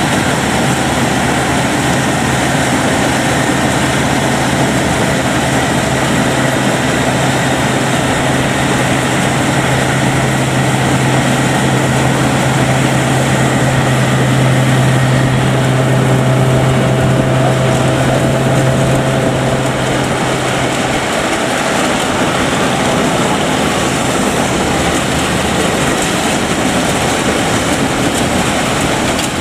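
Rice combine harvester engine and threshing machinery running steadily while cutting. A steady low hum stops about two-thirds of the way through, and the machine noise carries on.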